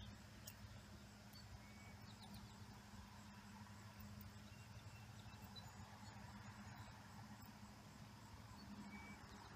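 Near silence: faint outdoor ambience with a low steady hum and a few faint, short high chirps.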